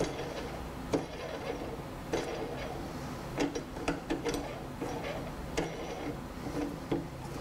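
Metal clicks and knocks from a stainless steel filter press cell being clamped in its frame by hand, its T-handle screw turned down: a series of short sharp taps, some in quick clusters, over a steady low room hum.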